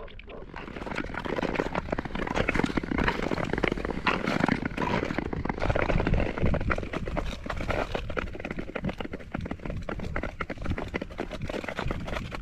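Nordic skate blades gliding and scraping over rough natural lake ice, a dense run of quick clicks and scratches growing louder about a second in, with a low rumble of wind on the microphone.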